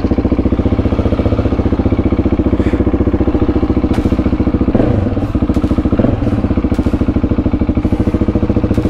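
Husqvarna 701 Supermoto's single-cylinder engine idling just after starting, with a steady, even pulse; the revs lift briefly twice, about five and six seconds in.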